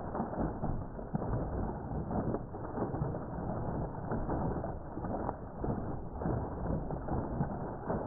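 Water gushing into a pond, splashing and churning the surface in a steady rush.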